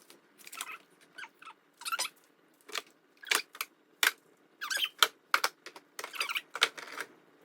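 Food containers and packaging being handled and shifted about in a refrigerator: an irregular string of short clicks, knocks and small squeaks, roughly two a second.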